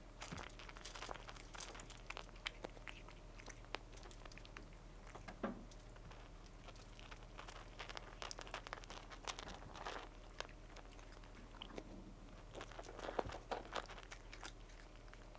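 A cat eating dry kibble off a mat, with irregular crunches of the pieces being bitten and chewed.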